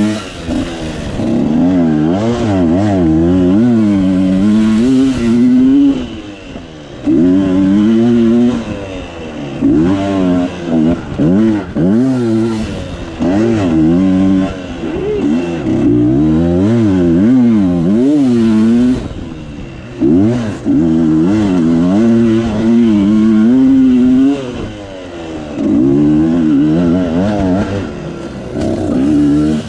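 Dirt bike engine revving up and down again and again as the throttle is opened and closed, with a few short lulls where the throttle is shut off.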